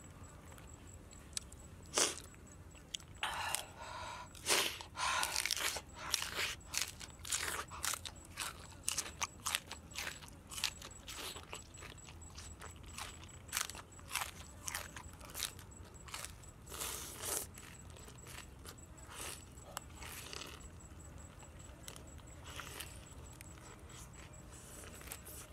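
A person biting and chewing a crisp lettuce leaf wrapped around small raw fish, close up: irregular crunches, loudest and most frequent in the first few seconds, thinning out near the end.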